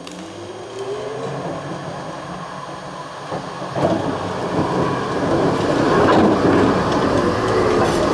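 An older tram approaches and passes close on its rails. The electric traction motors whine, rising in pitch at the start, over a steadily growing rumble of steel wheels on track. Clicks and knocks come over the rail joints from about four seconds in, as it draws level.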